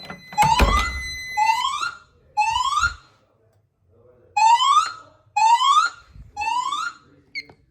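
Fire alarm voice-evacuation speaker sounding its alarm tone between announcements: short rising sweep tones, three in a row, a pause, then three more, in the temporal-three evacuation pattern. A steady high tone dies away in the first second and a half.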